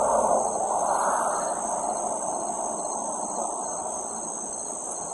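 Steady high-pitched chorus of night insects such as crickets. A lower rush of a passing car's road noise swells in the first second or so and then fades away.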